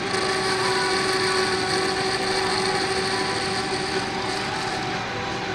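Metal lathe running while a turning tool skims the burnt copper commutator of a DC series motor's armature. Steady machine noise with a high whine from the cut, easing off about four and a half seconds in.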